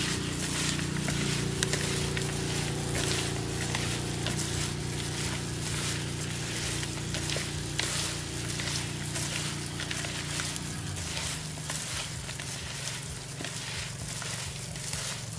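A gloved hand mixing and squeezing small whole fish with a turmeric mixture in a plastic bowl: a steady run of small wet squishes and crackles, with the plastic glove rustling. A steady low hum runs underneath and fades about eleven seconds in.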